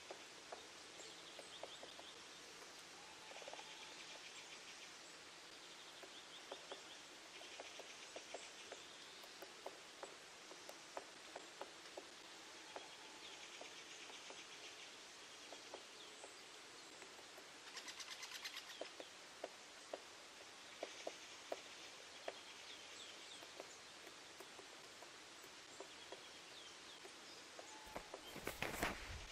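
Faint birdsong: birds singing short, repeated chirping phrases, with scattered faint ticks. A louder rush of noise comes near the end.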